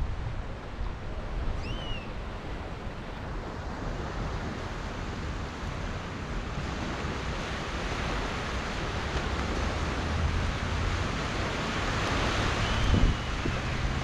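Surf washing onto a sandy beach, swelling louder in the second half, with wind rumbling on the microphone. Two brief high chirps come through, a little under two seconds in and near the end.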